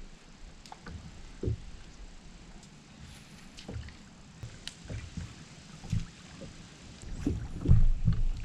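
Kayak being paddled: scattered paddle splashes and small knocks against the hull, with a louder group of them near the end.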